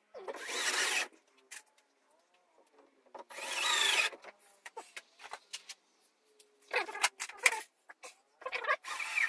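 Cordless drill/driver sinking screws into a plywood wall panel: two bursts of just under a second each, one near the start and one about three seconds in, followed by short clicks and knocks of handling near the end.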